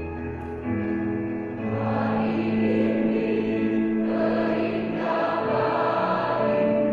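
Large mixed choir singing in harmony, holding long sustained chords that swell louder about a second and a half in.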